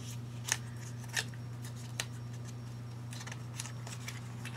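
A few sharp clicks and light handling noises as a lip gloss package is opened, over a steady low hum.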